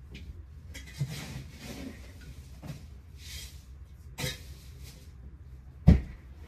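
Handling noises on a boat deck as plastic bags and a cooler are worked: several knocks with bursts of rustling, and a heavy low thump near the end.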